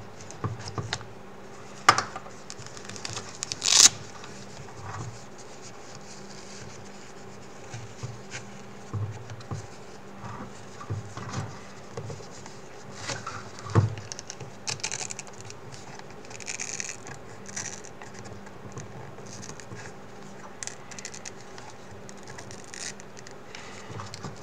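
Hands handling a VR headset and its fabric head strap: scattered rubbing, scraping and light plastic knocks. There are sharper clicks about two seconds in and near fourteen seconds, and a short rising scrape just before four seconds.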